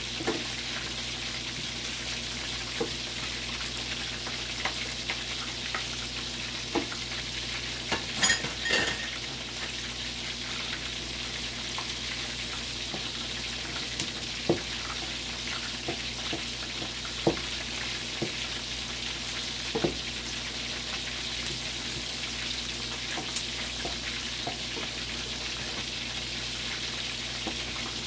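Chicken leg quarters frying in hot oil, crisping on the outside: a steady sizzle with scattered sharp pops, the loudest cluster about eight seconds in.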